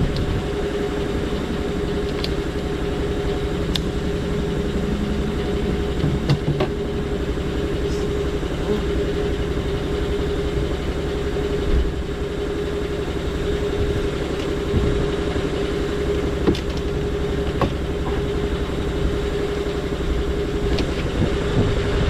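A motor running steadily at idle, a constant hum with a low rumble, with a few light clicks and knocks scattered through it.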